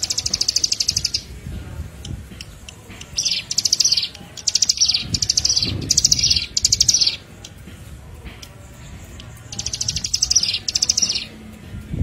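Bar-winged prinia (ciblek) singing: short, rapid, high-pitched trills about half a second to a second long, repeated in quick runs of several, with a pause of about two seconds in the middle.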